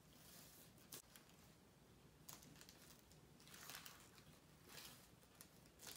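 Faint chewing and wet mouth clicks from eating a sandwich, with a few soft ticks; very quiet overall.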